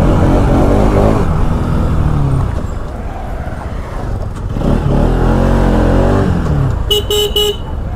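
Motorcycle engine under way. Its pitch falls in the first second, then rises and falls again around the middle as the bike accelerates and eases off. A brief pulsing high beep sounds near the end.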